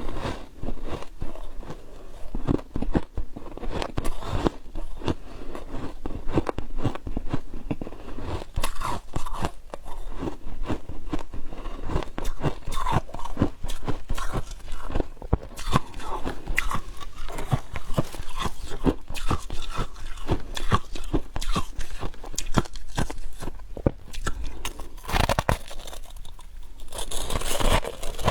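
Chunks of frost being bitten and chewed close to the microphone: dense, continuous crunching and crackling.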